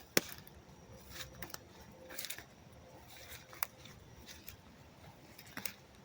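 A few sharp clicks and light rustles spread irregularly over a faint hiss, the loudest a single click just after the start.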